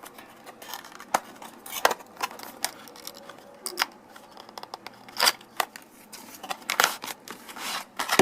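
A knife's retail box being opened and handled by hand: scattered sharp clicks and taps with short rustles of the packaging.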